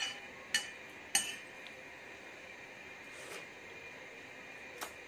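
A metal spoon clinking against a ceramic plate of soupy noodles: two sharp clinks within the first second and a half, and one lighter clink near the end.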